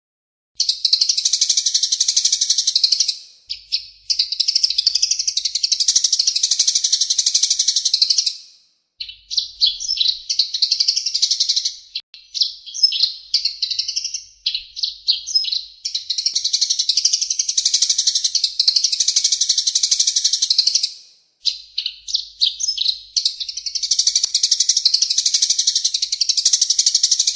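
Recorded songbird singing a fast, dense, harsh-toned song in long unbroken stretches of several seconds, with short breaks and a choppier run of separate phrases in the middle. The song starts just after half a second in.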